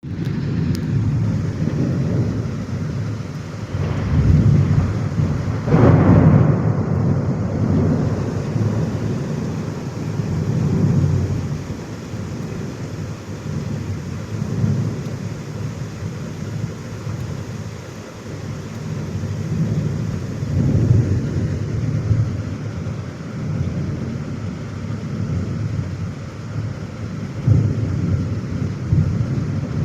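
Thunderstorm: rain falling steadily under low rolling thunder that swells and fades every few seconds. The loudest peal comes about six seconds in.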